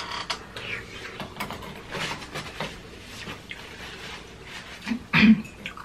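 Close-up eating sounds of instant cup noodles: slurping and chewing, with irregular small clicks of chopsticks and metal spoons against the paper cups, and one short louder sound about five seconds in.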